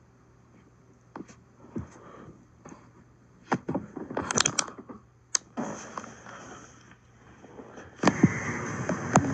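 Handling noise: scattered scrapes, rustles and clicks as a hand rubs over a cat's fur on carpet. About eight seconds in it becomes a louder, continuous stretch of rough rubbing.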